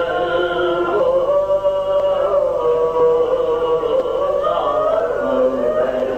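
Male voice chanting a marsiya, an Urdu elegy for the martyrs of Karbala, in slow, drawn-out melodic lines with long held notes.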